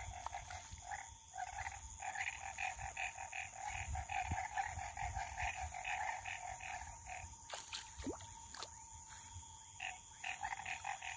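Frogs calling in a chorus, quick runs of short pulsed notes repeating one after another with brief gaps.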